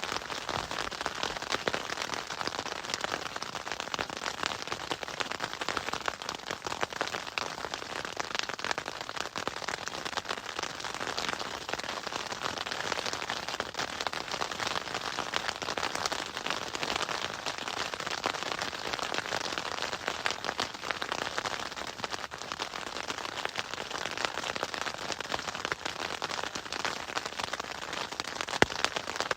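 Hailstones pelting down in a dense, steady patter of countless small ticks, with one sharper hit near the end.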